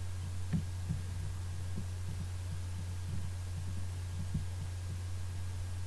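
Steady low electrical hum picked up by the recording microphone, with faint, soft low thumps scattered through it.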